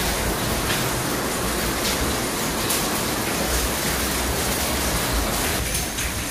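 Rain falling steadily, an even hiss that softens slightly near the end.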